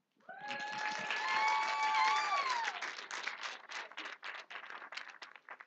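Church congregation applauding after a children's recitation, with one voice giving a long held cheer that bends down in pitch a couple of seconds in. The clapping thins to scattered claps near the end.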